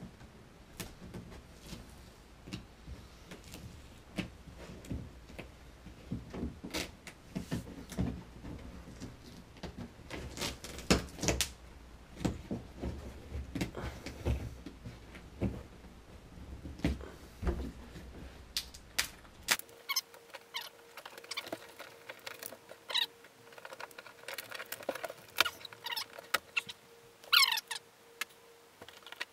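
Hands digging and scraping around inside the bottom of a Wave Sport Recon 93 plastic kayak hull, pulling at old tape patches: irregular knocks and scrapes against the plastic. About two-thirds of the way through a faint steady hum comes in under the scraping, with a few short squeaky glides near the end.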